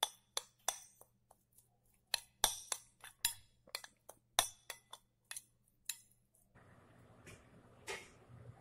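A metal spoon clinking against a glass bowl as chopped green onions are stirred with oil: a run of light, irregular clinks. About six and a half seconds in, the clinks stop and the faint steady hum of a microwave oven running takes over.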